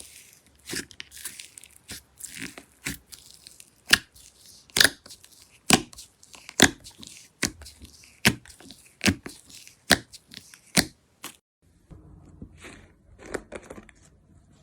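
Slime being worked by hand, crackling softly and then giving a steady run of sharp pops, a little more than one a second, for about seven seconds. Near the end it turns to softer, quieter handling sounds.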